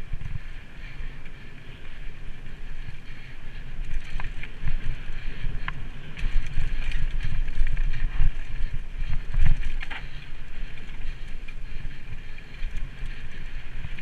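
Mountain bike descending a rocky trail at speed: wind buffeting the microphone with a heavy, gusting rumble, and the bike rattling and knocking as the tyres go over rock. The knocks come thickest in the middle stretch, which is also the loudest.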